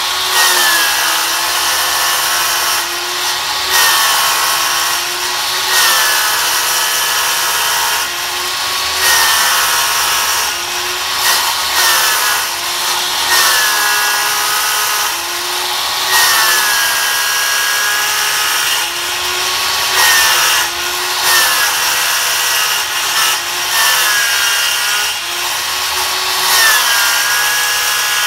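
Corded electric saw running steadily while cutting through a corrugated plastic septic tank riser. Its motor pitch dips and the level swells every couple of seconds as the blade bites into the plastic.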